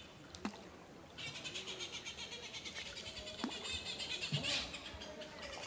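A shrill, rapidly pulsing wildlife call sets in about a second in and carries on steadily. Two sharp knocks of the wooden paddle against the canoe come before and during it.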